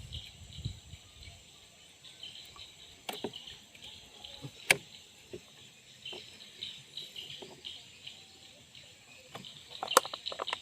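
Insects chirring steadily, with scattered small water splashes and drips and a few sharp clicks, the loudest about four and a half seconds in and a short cluster near the end.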